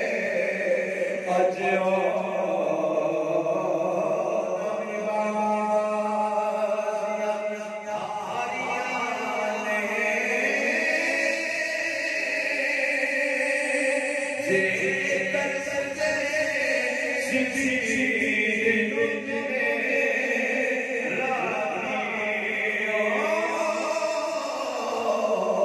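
A man's solo voice chanting a devotional verse into a microphone, in a slow melody of long held and gliding notes.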